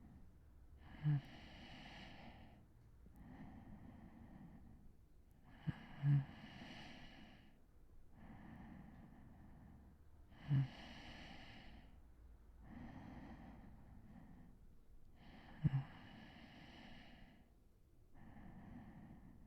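A man breathing slowly and deeply as he sleeps, in soft airy breaths about every two seconds. A short low snore catches at the start of every other breath, four times.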